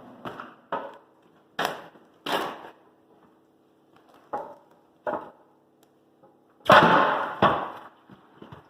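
Irregular knocks and clanks from work on a tractor tire and rim, about ten sharp strikes with the loudest two close together near the end, over a faint steady hum.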